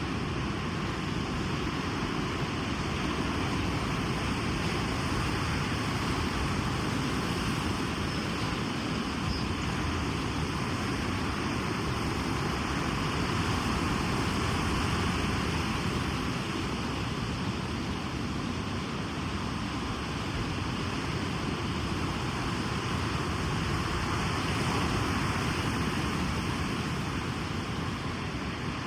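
Sea surf washing on a beach: a continuous rush of waves that swells gently about halfway through and again near the end.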